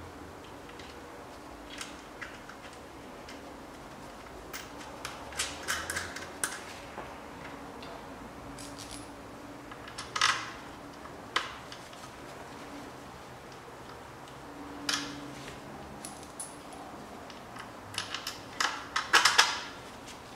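Metal parts and hand tools clinking and clicking as an alternator is fitted to its mounting bracket on the engine: scattered sharp clicks, a louder clink about halfway through and a quick run of clinks near the end.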